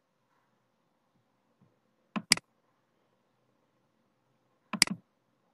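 Two computer mouse clicks about two and a half seconds apart. Each is a quick pair of ticks, the button pressed and released.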